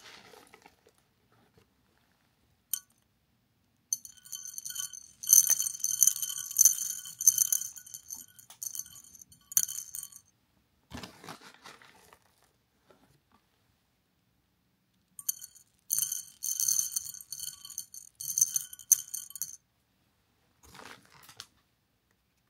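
Small dried beans poured into a shallow square dish, rattling and clinking against it in two long pours of several seconds each. A single tick comes early, a knock falls between the pours, and a short rattle comes near the end.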